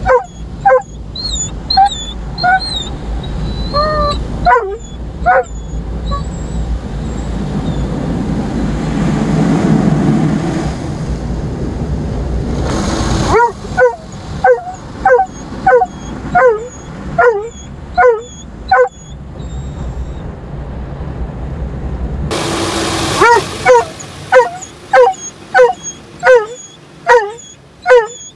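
Doberman barking loudly and fast, about two barks a second in long runs, with high whines early on, inside a car going through an automatic car wash. Between the runs of barking, the wash's water and machinery make a broad rushing noise on the car body that swells loudest in the middle.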